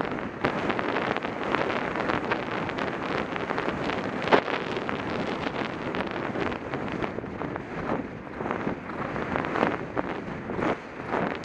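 Wind rushing over a helmet-mounted camera's microphone as a horse gallops across grass, with frequent irregular thuds and knocks from the ride.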